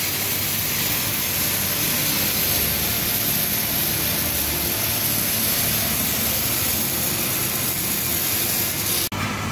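Workshop machinery running: a steady, loud rushing hiss with a low hum, cut off suddenly about nine seconds in.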